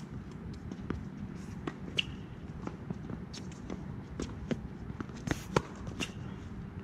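Tennis rally on a hard court: sharp pops of racket strikes and ball bounces, the loudest about two seconds in and a cluster near five and a half seconds, with scuffing footsteps over a steady low hum.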